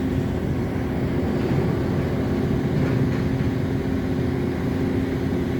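Steady low rumble with a constant mechanical hum running underneath, unchanging throughout.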